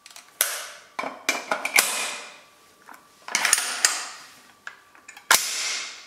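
Metal clacks and clicks from handling a PPSh-41 replica submachine gun while its drum magazine is fitted into the magazine well: several sharp clacks in two clusters, each ringing briefly, then a single hard clack near the end.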